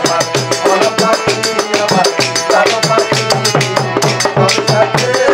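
Baul folk song: a man singing over a fast, steady hand-drum beat with sharp clicking percussion strokes.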